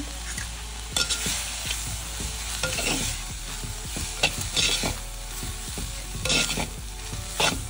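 Steel spoon stirring and scraping fenugreek leaves, onion and peas around a pot, in many quick strokes, over a light sizzle of the vegetables cooking in oil.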